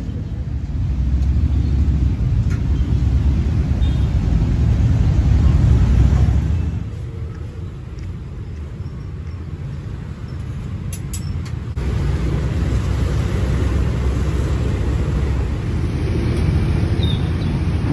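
Street traffic: a steady low rumble of passing motorbike and car engines. It drops away about seven seconds in and returns some five seconds later.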